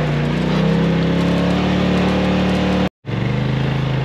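Polaris RZR XP 4 Turbo side-by-side's engine running under way, its pitch rising slightly as it picks up speed. About three seconds in the sound cuts out for a split second and comes back at a lower, steady pitch.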